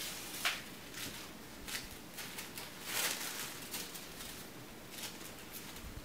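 Faint rustling and crinkling of tissue paper being handled and laid onto a paper page, in several short bursts.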